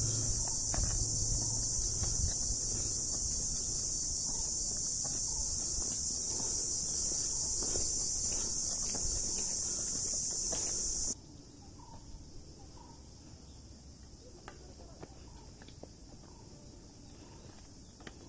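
A steady, high-pitched drone of insects, with footsteps on a dirt and rock trail. About eleven seconds in the drone cuts off abruptly, leaving quieter footsteps.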